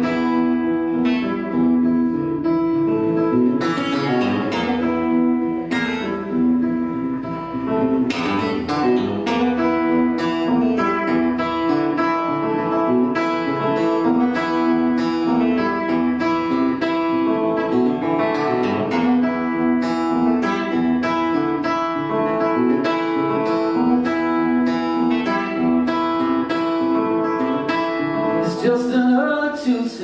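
A solo acoustic guitar plays a repeating riff as a song's instrumental introduction. A man's singing voice comes in near the end.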